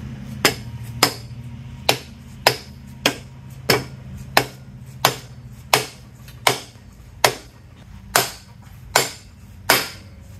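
Hammer blows seating a differential carrier, fitted with a Torq Locker, into a Dana 60 axle housing. There are about fourteen sharp metallic strikes in a steady rhythm, roughly one every two-thirds of a second, each with a brief ring.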